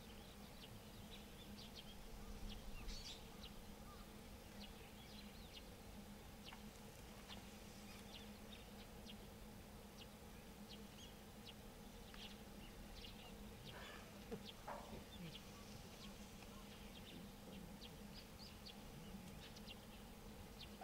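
Faint outdoor ambience: scattered short chirps of small birds over a steady low hum.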